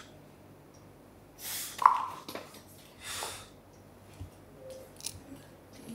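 A man breathing hard through nose and mouth in short forceful breaths at the end of a set of dumbbell presses, with a sharp metallic clank about two seconds in and a lighter click near the end.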